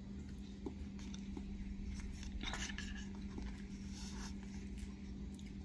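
Faint soft squishing and rustling of pulp-coated cacao beans being pulled apart by hand in a bowl, over a steady low hum.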